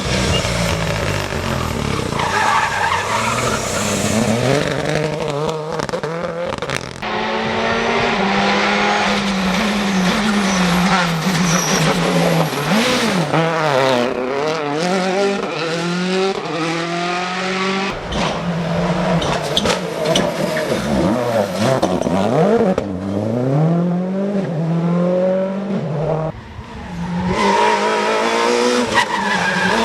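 Rally cars at full throttle, engines revving hard and climbing through gear changes, with several cars sweeping past one after another. Each pass-by rises and falls in pitch, and the sound switches abruptly from one car to the next.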